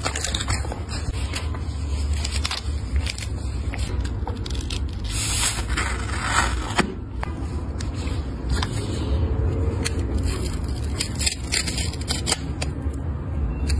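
A snap-off utility knife blade scraping and cutting through white shoe foam, with crackles and sharp clicks as the material is handled. Louder stretches of cutting come about five seconds in and again around ten seconds. A steady low hum runs underneath.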